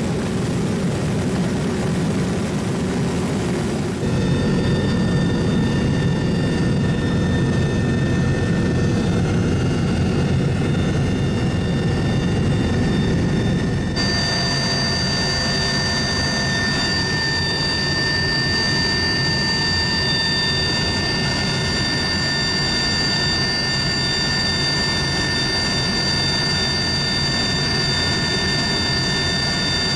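Rescue helicopter's turbine engines and rotor running steadily: a loud, constant din with high whining tones over it. The sound changes abruptly twice, about 4 and 14 seconds in, and after the second change it is heard from inside the cabin.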